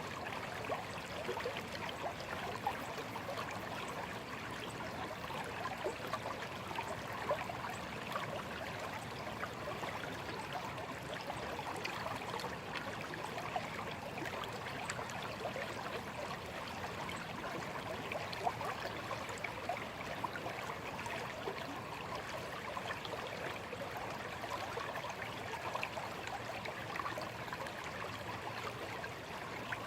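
Shallow stream flowing steadily, with small trickles and gurgles over a constant rush of water.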